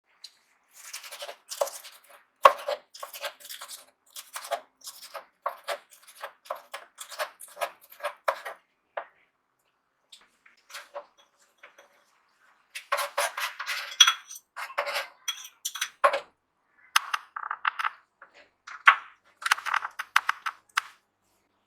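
Kitchen knife chopping red pepper on a cutting board: runs of quick taps, with a pause of a few seconds about halfway through.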